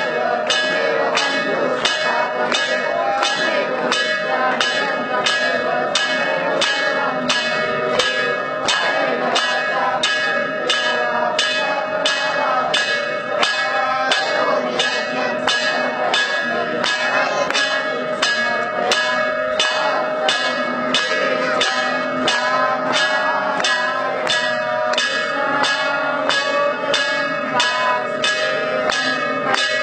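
Temple bells ringing during aarti. They are struck in a steady rhythm a little faster than once a second, and their ringing tones carry on between strikes.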